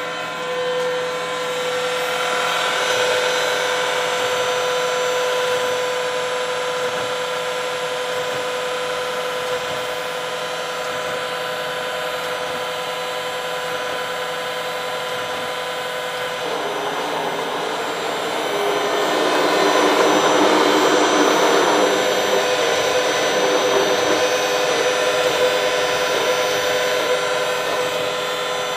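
Fanuc Alpha-T14iA Robodrill drilling and tapping center running a program: a steady machine whine made of several held tones. A louder, rougher noise builds from a little past halfway and lasts several seconds.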